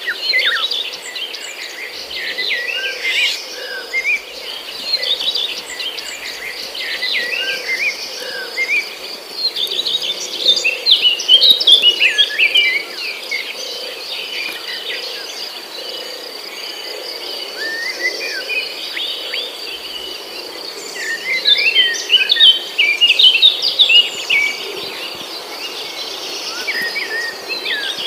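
Birds chirping and twittering over a steady high insect buzz, with busier, louder spells of chirping near the middle and about three-quarters of the way through.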